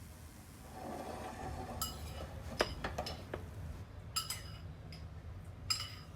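Cutlery and dishes clinking: a string of light taps, then two brighter clinks with a short ring.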